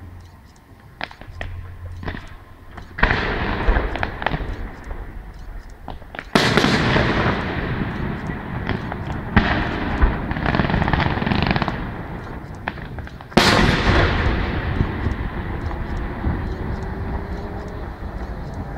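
Fireworks display: scattered sharp cracks, then heavy bangs about three, six and thirteen seconds in, each followed by seconds of dense crackling.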